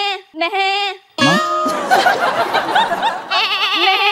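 A woman imitating a goat's bleat: short wavering, quavering calls, two in the first second and a longer one near the end. Between them comes about two seconds of a loud burst of music.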